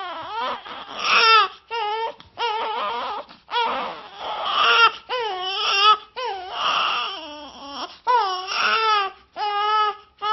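Newborn baby crying just after birth: a run of short, wavering wails, one after another, with brief gasps for breath between them.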